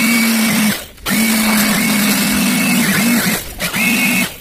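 Electric air blower blowing dust out of a CRT TV chassis, its motor running with a steady hum and whine. It cuts out briefly about a second in and dips again near the end, the pitch sagging each time before it picks up again.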